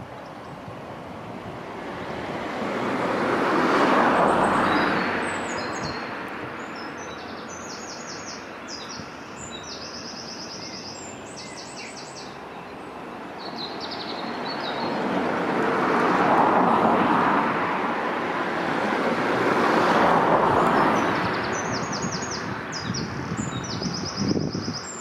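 The rushing noise of passing vehicles swells and fades three times: about four seconds in, and twice more in the second half. Between these, a songbird sings bursts of rapid high trills.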